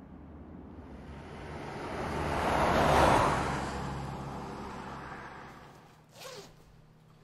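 A road vehicle passing by, its noise swelling to a peak about three seconds in and then fading away. Near the end comes a short squeak that falls in pitch.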